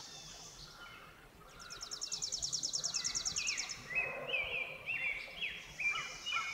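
Songbirds singing in forest: a fast, high trill lasting about two seconds, then a run of short chirping notes, about three a second.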